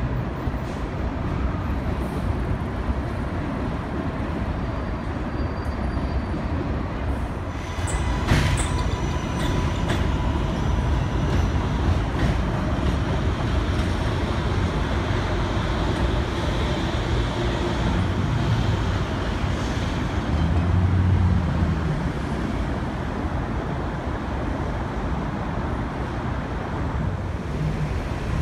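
New York City subway train on the elevated steel structure of the BMT Jamaica Line: a continuous low rumble of wheels on rail. There is a sharp metallic clank about eight seconds in, and the rumble swells louder around twenty seconds in.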